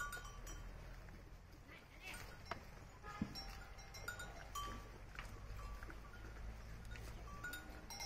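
Faint, short squeaky calls from young animals, repeated every second or so, among light clicks and taps.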